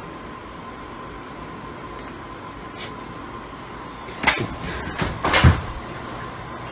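A few knocks and thumps about four and five seconds in, over a steady background hiss with a faint constant tone.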